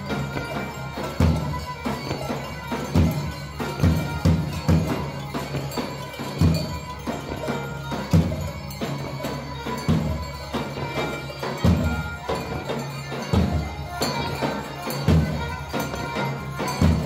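Pontic folk music: a large double-headed davul drum struck with a heavy beat about once a second, under a continuous nasal folk melody.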